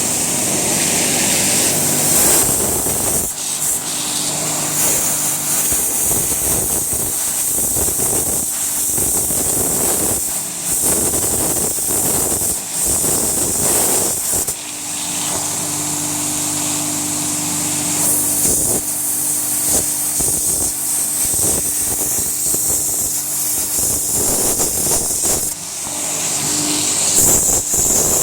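Landa 3000 psi pressure washer running, its motor and pump humming steadily under a loud hiss of high-pressure spray. The jet's sound changes irregularly as it blasts into a block of hardwood.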